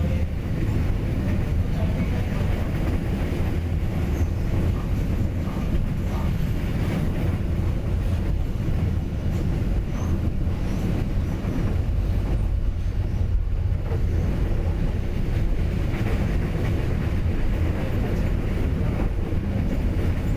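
Train running on the rails: a steady, loud low rumble of wheels and carriages.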